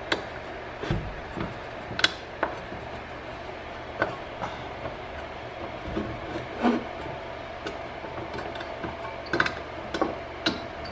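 Scattered light clicks and knocks of metal parts being handled and fitted together, as a retaining bracket goes onto a clay extruder barrel at its gearbox, over a steady low hum.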